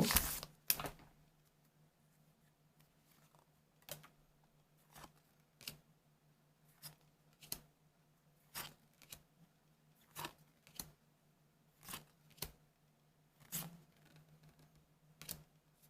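Trading cards being flipped through one at a time, each card giving a short sharp snap or slide, roughly one a second, after a brief rustle of the pack at the start. A faint steady hum runs underneath.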